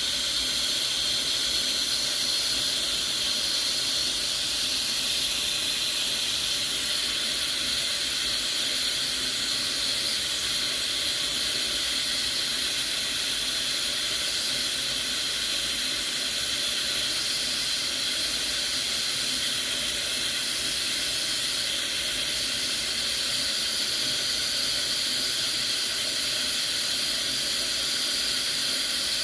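Stovetop pressure cooker hissing steadily as steam escapes from its valve once it has come up to pressure.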